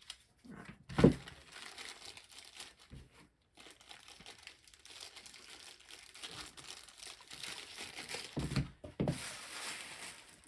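Packaging crinkling and rustling as board game components are unpacked, with a sharp knock about a second in and a couple of duller thumps near the end.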